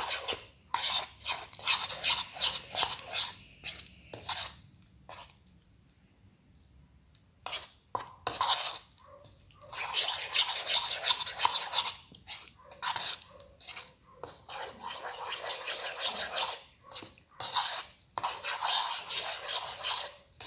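A spoon scraping and squelching through a thick mashed-potato and chickpea-flour batter in a bowl, in quick repeated mixing strokes, with a pause of a couple of seconds about five seconds in.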